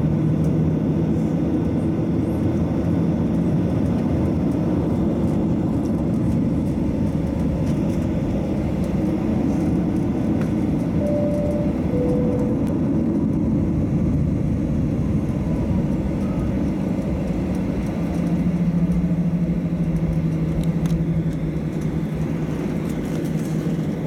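Cabin noise of a Boeing 737-800 taxiing, its CFM56-7B turbofan engines running at low taxi power as a steady low rumble with a steady hum. Two brief tones, the second lower, come about halfway through.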